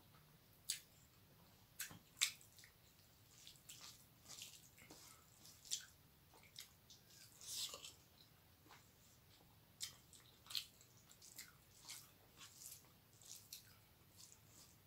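Faint, wet squelching of fingers mixing rice with dal and curry on a steel plate, broken by irregular short clicks and chewing sounds.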